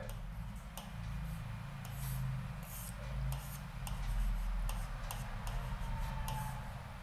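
Chalk writing on a blackboard: light taps and short scratchy strokes of the chalk, over a low steady hum.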